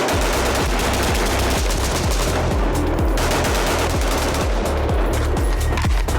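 Rapid automatic gunfire running continuously over a music track with a heavy, regular bass beat.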